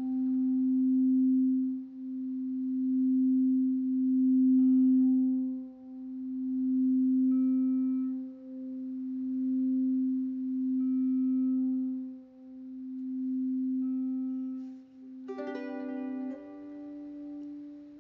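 Background music: a steady low tone that swells and fades roughly every two seconds. A run of plucked string notes comes in about fifteen seconds in, in the same ukulele strumming that plays around it.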